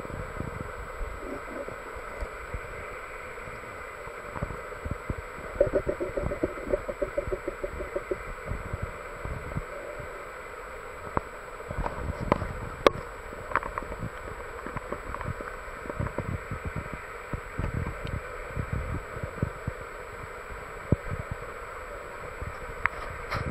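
Muffled underwater sound picked up by a submerged camera: irregular low thumps and knocks over a steady hiss, with a burst of rapid ticking about six seconds in and a few sharp clicks around the middle.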